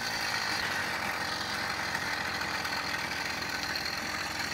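Small two-stroke engine of a motorized bicycle kit running steadily under way, with a buzzing, chainsaw-like note.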